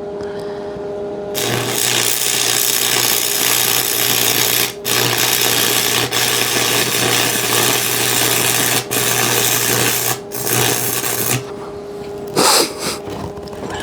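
Electric arc welding on 1-inch square steel tubing: a loud, steady crackling hiss with a low hum, starting about a second in, briefly broken three times and stopping about eleven seconds in. A short burst of noise follows near the end.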